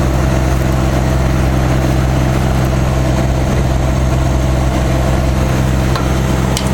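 Vintage Norge-built Montgomery Ward 25-pint dehumidifier running steadily on high, its refrigeration compressor and fan together making a steady low hum with a whooshing air noise.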